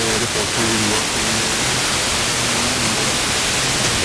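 Steady hiss of a weak FM signal on a Blaupunkt car radio tuned to 88.3 MHz. Faint speech from a distant Norwegian station rises and fades under the noise, the typical sound of long-distance FM reception over sporadic-E skip.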